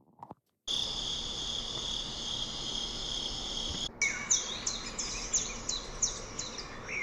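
A steady high-pitched chorus of crickets that cuts off abruptly about four seconds in, followed by birds singing in a run of quick, falling high chirps.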